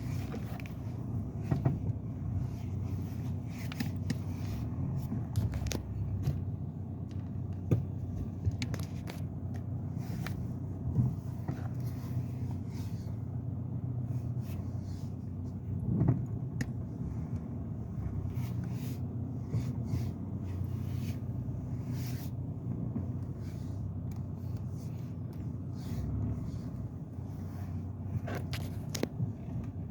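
A 2007 BMW M Sport running steadily, with irregular sharp clacks over the low engine hum, a few every couple of seconds: the clacking noise fault being recorded.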